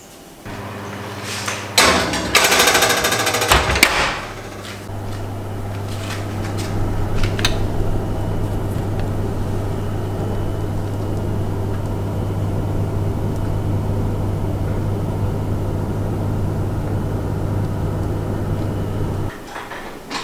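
Electric oven running with a steady low hum that cuts off suddenly near the end, after a loud clatter about two seconds in.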